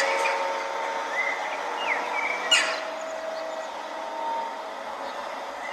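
The so-called 'sky trumpets' sound: a steady drone of several held, horn-like tones over a background hiss. Short bird chirps sound about one and two seconds in, and a sharper, louder one comes about two and a half seconds in.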